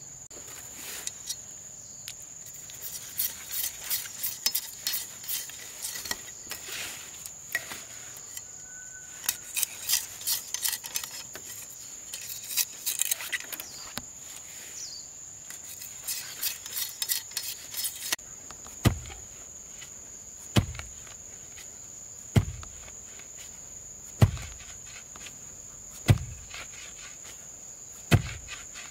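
Wood being rasped and scraped with a hand tool in quick uneven strokes for the first two-thirds, then six heavy blows on wood about every two seconds. A steady high insect drone runs underneath.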